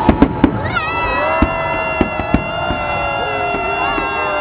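Fireworks shells bursting in a salute: a quick run of sharp bangs at the start and a few more scattered through. From about a second in, a long steady pitched tone is held over them.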